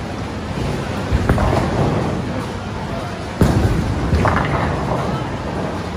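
Bowling alley din: the low rumble of balls on the lanes and sudden pin crashes, about a second in and again midway, over people's chatter.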